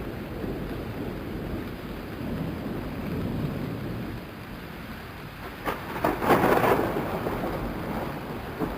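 Thunderstorm sound effect: steady rain with rumbling thunder, and a louder crackling thunderclap about six seconds in.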